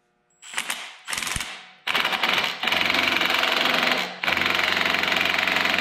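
Compact Milwaukee impact driver hammering as it turns a three-jaw gear puller's forcing screw to draw a rusted, pitted auger bearing off the snow blower shaft. Rapid impacts in two long runs, starting about two seconds in, with a short pause around four seconds.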